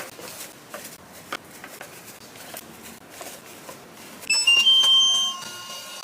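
Light handling taps and clicks, then about four seconds in a small printer's motor starts up with a loud whine of several high steady tones that shift in pitch, settling quieter near the end.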